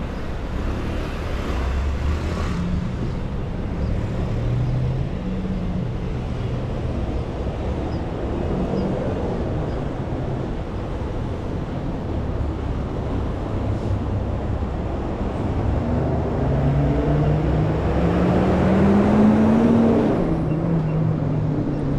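City street traffic: a steady rumble of passing cars, with one vehicle's engine rising in pitch and growing louder as it accelerates past near the end.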